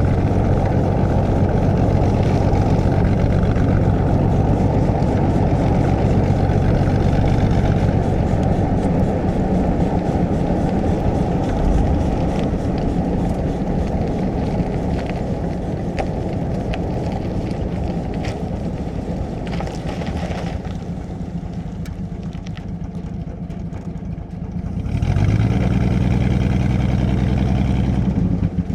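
Cabin interior of a 1937 Plymouth on the move, its flathead straight-six running steadily under load with road noise. It eases off and quietens for a few seconds, then pulls again with a rising engine note near the end.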